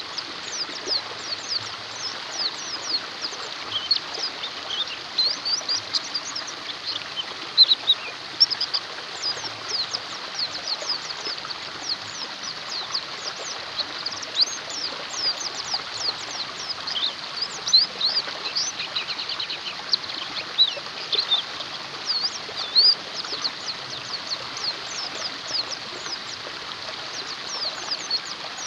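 Many white-eyes (pleci) chirping: quick, high, downward-sweeping chirps crowd over one another without a break, over a steady rushing background hiss.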